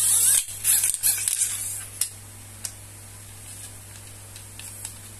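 Rustling handling noise for about the first second and a half as the long carbon-fibre selfie stick is moved about over plastic wrapping, followed by a few faint taps.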